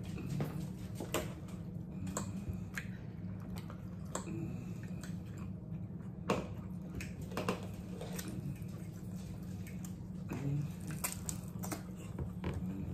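Close-miked eating: chewing, with scattered sharp clicks of metal forks against plates, over a steady low hum.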